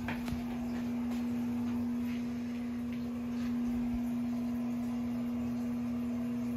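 A steady hum at one clear pitch, with a faint low rumble and light hiss beneath it.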